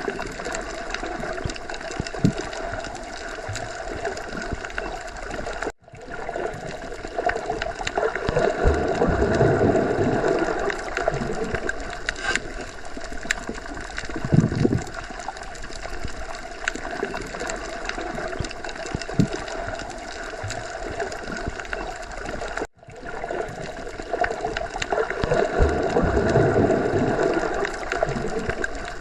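Underwater ocean ambience: a steady watery hiss with bubbling and gurgling, scattered small ticks, and slow low swells that rise and fall. The sound drops out for an instant about six seconds in and again near the end, where the recording loops.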